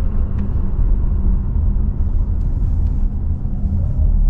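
Steady low rumble of a Nissan car driving, heard from inside the cabin: engine and road noise.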